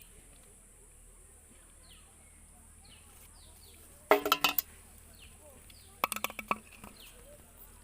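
Outdoor ambience of short falling chirps repeating about every half second over a steady high hiss. Two bursts of clinking, rattling knocks come about four and six seconds in.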